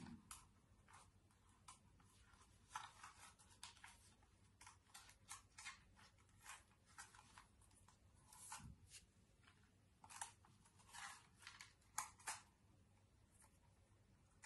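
Faint, irregular rustling and scratchy clicks of packaging being handled and cut open, like paper or plastic crinkling and scissors snipping, with a soft thump a little past the middle.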